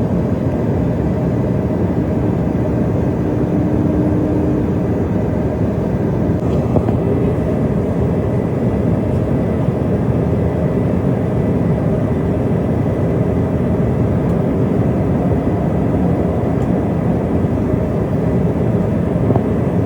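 Jet airliner cabin noise in flight: a steady, even low rumble of engines and airflow. A brief faint hum sits on top of it a few seconds in.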